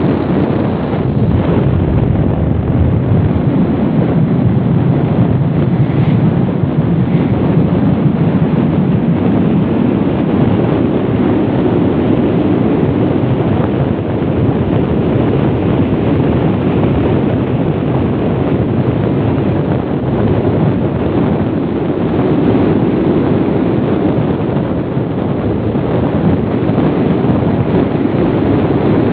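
Steady wind rushing over the microphone of a Honda XRM 125 motorcycle riding along at speed, a loud low rumble with the bike's running and road noise mixed in underneath.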